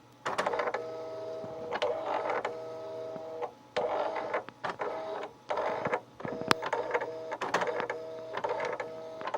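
Commodore MPS 1270 inkjet printer printing a page. Its print-head carriage makes a steady two-tone whine in runs of a second or two, broken by short pauses and sharp clicks between passes.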